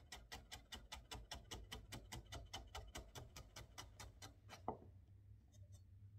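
Chef's knife julienning cucumber on a wooden cutting board: a fast, even run of light taps of the blade on the board, about six a second, that stops after about four and a half seconds, followed by one louder knock.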